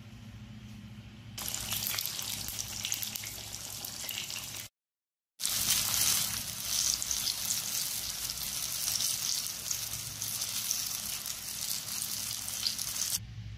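Eggplant slices shallow-frying in oil in a pan: a steady crackling sizzle. It starts about a second and a half in, drops out for a moment around five seconds, and stops shortly before the end. A low steady hum is heard before and after it.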